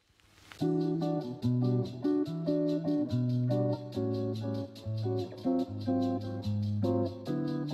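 Background music: plucked guitar over a bass line with a steady ticking beat. It drops out at the start and comes back in within about half a second.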